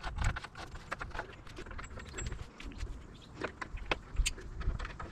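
Small metal hardware clicking and tapping as bolts, washers and nuts are fitted through a plywood deck by hand, with a few sharper clicks late on.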